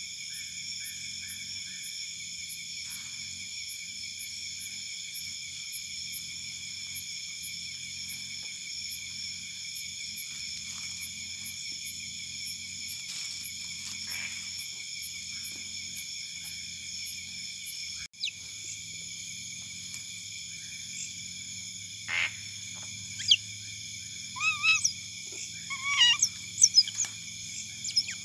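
Steady chorus of night insects. From about two-thirds of the way through, a string of sharp, high squeaks and chirps from otters close by, the loudest sounds here.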